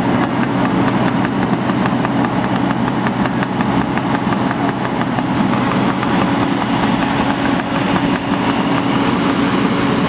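Fire engine's diesel engine running steadily with a constant low hum, parked with a hose line laid out from it.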